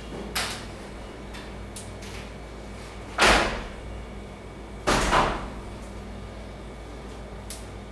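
Handling noise from a leather sneaker being turned and set against a cardboard shoebox: three short brushing scrapes, the first just under half a second in, the loudest a little after three seconds and the last about five seconds in. Faint clicks and a steady low hum run underneath.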